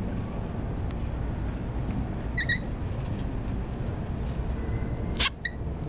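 Rainbow lorikeets giving short, high chirps: a quick pair about two and a half seconds in and one more near the end, just after a sharp click. A steady low background rumble runs underneath.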